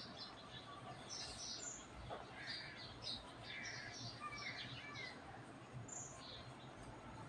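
Chicken pieces deep-frying in hot oil in an aluminium kadai: a faint sizzle with scattered short crackles and chirps.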